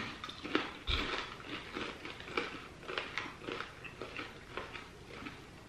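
A person chewing a mouthful of crunchy candy-coated popcorn close to the microphone: crisp crunches about two a second, growing softer toward the end.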